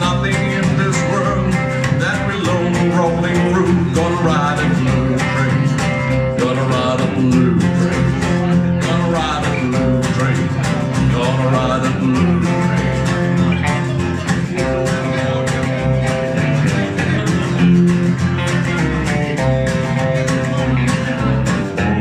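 Live country band playing an instrumental break at a steady driving beat: acoustic guitar strumming, upright double bass, and electric guitar.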